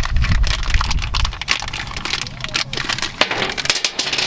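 Crinkling of a plastic hardware-kit bag being handled and opened, with small metal parts (keys, bolts, nuts) clicking and clinking against each other. There is a low rumble of handling during the first second or so.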